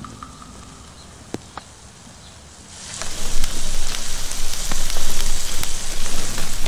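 Embers in an asado grill crackling and hissing, setting in loudly and suddenly about three seconds in, full of sharp pops.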